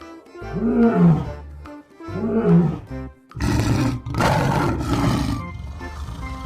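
Lion roaring as a sound effect: two rising-and-falling roars, then a longer, rougher roar about halfway through, over light background music.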